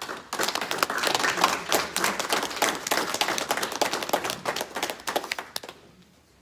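A congregation applauding: many people clapping together. The clapping starts just after the opening and dies away about five and a half seconds in.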